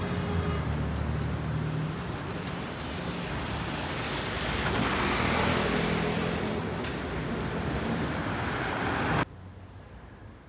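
Road traffic on a city street, with engine hum at first and a vehicle passing by about five seconds in. Near the end it cuts off suddenly to a much quieter outdoor background.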